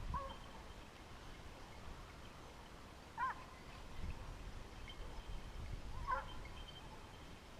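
Hunting hounds baying in the distance, three short faint calls a few seconds apart, over low wind rumble.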